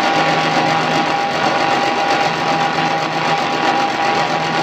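Electric-motor-driven chaff cutter (chopper) running steadily with no load, a constant whine over a loud mechanical rush.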